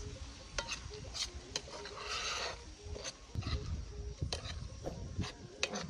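A spoon stirring and scraping a sauce in a metal frying pan, with a short rasping scrape about two seconds in and scattered light clicks and taps throughout.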